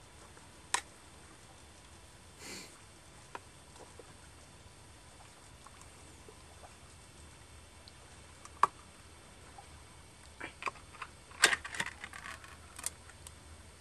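Scattered small clicks and taps of objects being handled, with one sharper click about nine seconds in and a quick run of clicks near the end.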